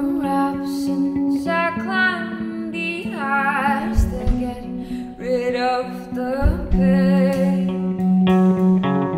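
A song: a woman singing held, wavering notes over plucked guitar.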